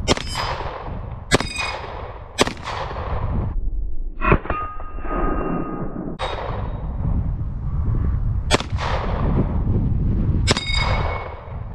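A Canik SFX Rival 9mm pistol firing single shots about every one to two seconds, about seven in all, with steel targets ringing after several of the hits.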